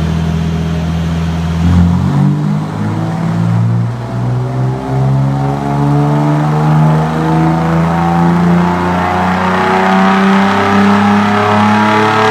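Tuned car engine running under load in a pull on a chassis dyno, its revs climbing slowly and steadily.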